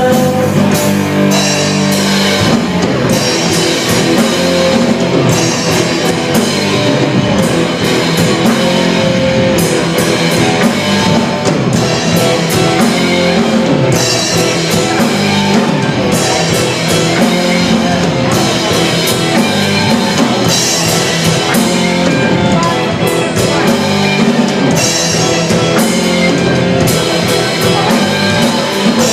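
Rock band playing live, an instrumental passage with guitar and drum kit and no singing, at a steady driving beat.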